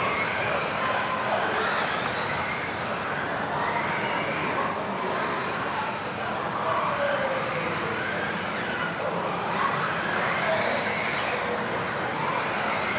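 Several electric off-road RC buggies racing, their brushless motors whining and gliding up and down in pitch as they accelerate and brake, over a haze of tyre and chassis noise.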